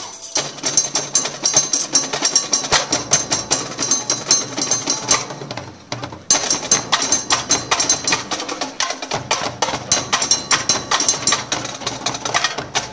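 Marching band percussion section (drumline and front-ensemble mallets) playing a fast, busy passage of rapid strikes over a low sustained tone, with a brief break about six seconds in.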